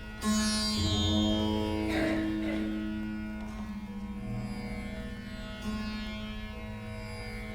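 Rudra vina playing the slow, unmetred opening alap of rag yaman: a few plucked notes, near the start, about two seconds in and about six seconds in, each ringing on over a steady drone.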